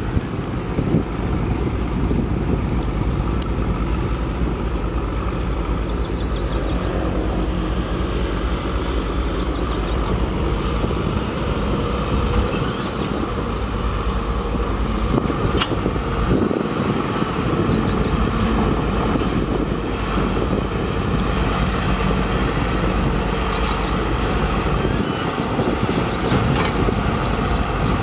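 Heavy diesel construction machinery, excavators and dump trucks, running steadily with a continuous low engine rumble.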